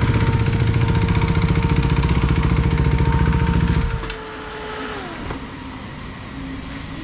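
A motorcycle engine running steadily at idle, then switched off about four seconds in. A whine drops in pitch and dies away a second later.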